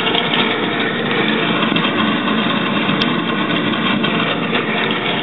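Sewer-cleaning truck's engine running steadily while a city crew cleans out the sewer lines.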